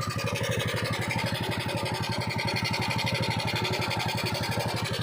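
Freshly rebuilt Yamaha Mio scooter's single-cylinder four-stroke engine idling steadily, with an even, rapid exhaust pulse.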